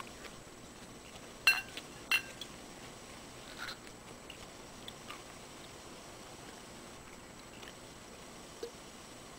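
Mouth sounds of a man chewing a raw Anaheim chili pepper: soft, scattered smacks and ticks. Two sharp clicks come close together about a second and a half in.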